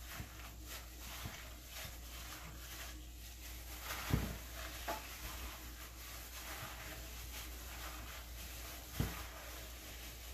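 Gloved hands kneading cubed raw beef with spices and oil in a glass bowl: faint squishing and rustling of plastic gloves against the meat, with a soft knock about four seconds in and another about nine seconds in.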